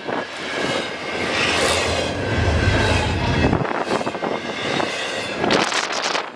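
Freight train rolling past close by: a steady rush of steel wheels on rail, broken by repeated clacks as the wheels cross rail joints. A deep rumble swells about a third of the way in and drops away a little past halfway.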